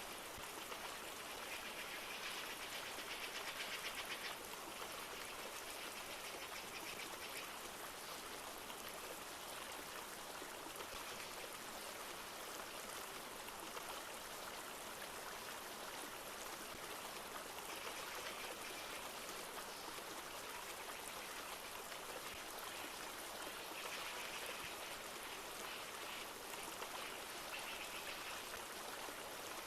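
A flowing river runs with a steady rush of water. A few brief, brighter higher-pitched stretches come and go over the flow.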